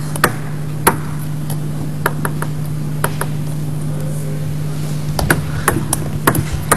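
Sharp clicks of a table tennis ball struck by bats and bouncing on the table during a rally, scattered at first and coming quicker and closer together near the end. A steady low electrical hum runs underneath.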